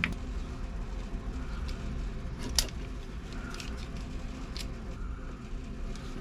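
Faint scraping with a few sharp metallic clicks: a wire brush being worked over the stripped copper strands of a battery cable, cleaning them before a new terminal goes on.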